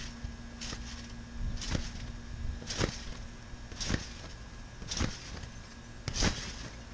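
Someone bouncing on a wet trampoline, the springs and mat sounding with each landing at an even pace of about one bounce a second, six in all.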